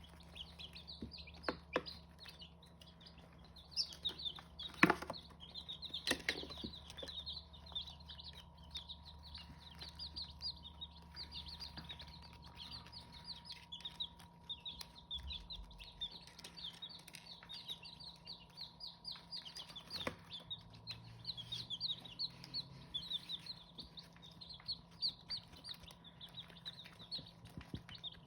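A brood of Hmong chicken chicks peeping: a dense, continuous stream of short high-pitched cheeps, with a few sharp knocks, the loudest about five seconds in.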